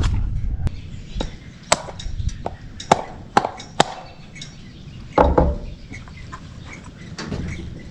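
Scattered sharp clicks and knocks of an electrical box, cable and cordless driver being handled at a wooden ceiling joist, with a heavier knock about five seconds in.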